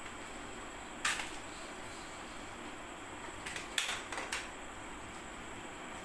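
Sharp plastic clicks from handling a hand-held RC transmitter: one about a second in, then a quick run of three or four near the middle, over a steady hiss.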